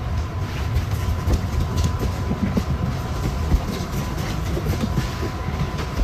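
Steady low rumble with irregular rattling and knocking, like a vehicle or machine in motion.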